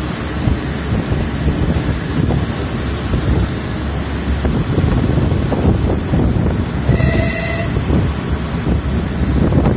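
Onboard rumble of a train running along the track, with wind buffeting the microphone. About seven seconds in, a brief high tone sounds over it for under a second.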